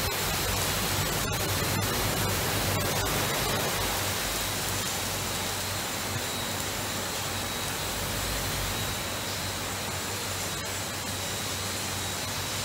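Westmatic 3 Brush Rollover automatic truck wash running: water spray and a spinning brush scrubbing the side of a truck, a steady hiss with a faint high steady tone and a low hum beneath, easing off slightly partway through.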